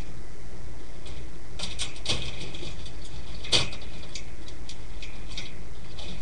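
Newborn rat pups stirring in their nest bedding: a scatter of small clicks and faint high squeaks over a steady low hum, with a sharper click about three and a half seconds in.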